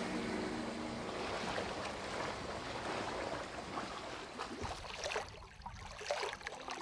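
Steady rush of water churning, as in a boat's wake. About five seconds in it thins out to a few small splashes.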